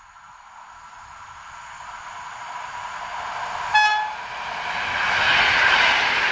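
Electric multiple unit approaching and passing close by, its rolling noise growing steadily louder. The driver gives one short, loud toot on the horn nearly four seconds in.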